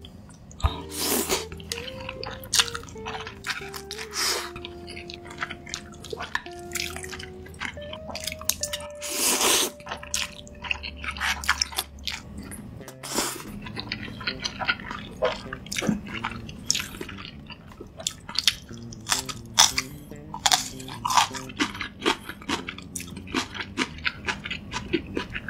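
Close-miked eating: a long noodle slurp about a second in and another near the middle, then chewing with many short wet clicks and crunches, over soft background music.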